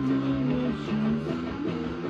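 Guitar playing a melody, with notes sliding between pitches over a steady low note.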